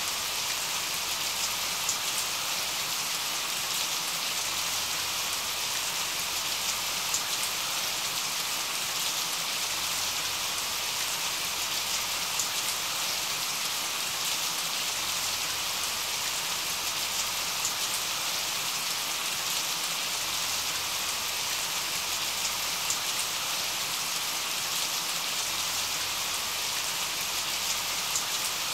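Steady rain sound: an even hiss with scattered drop ticks, used as the masking track of a subliminal recording.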